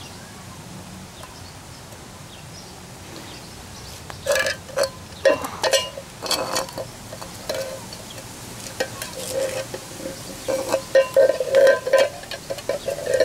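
Empty tin can being knocked, pushed and gripped on concrete by a sulphur-crested cockatoo's beak: irregular metallic clanks and scrapes with a short ring, starting about four seconds in and growing busier near the end.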